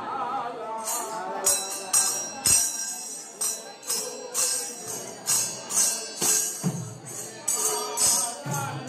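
Kirtan music: brass hand cymbals clashing in a steady rhythm, about two strokes a second, starting about a second in. Near the end a barrel drum adds a few deep strokes, with voices at the start and again near the end.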